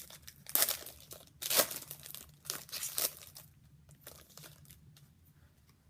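A trading card pack's wrapper being torn open and crinkled: three loud bursts of rustling in the first three seconds or so, then fainter rustles and clicks as the cards are handled.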